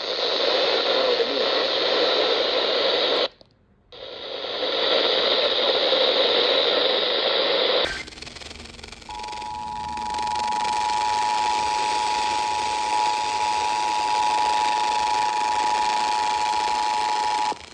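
Weather radio static hiss that cuts out for a moment, then, about eight seconds in, the Emergency Alert System attention signal: two steady tones (853 and 960 Hz) sounding together for about eight seconds before stopping abruptly near the end.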